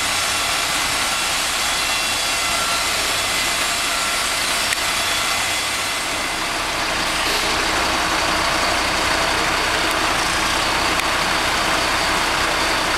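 Mobile crane's engine running steadily while it hoists a load.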